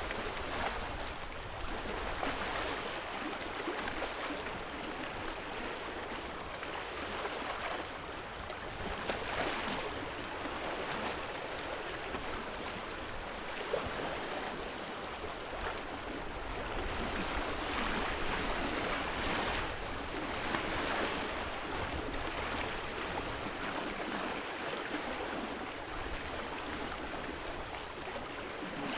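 Small lake waves lapping and splashing on the shore: a continuous wash of water that swells and eases in irregular surges.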